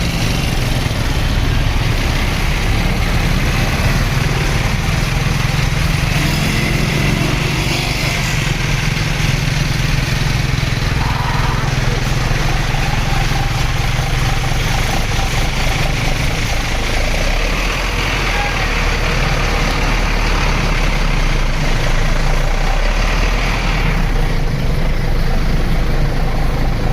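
Bus engine running with a steady low drone, under a constant wash of road and traffic noise.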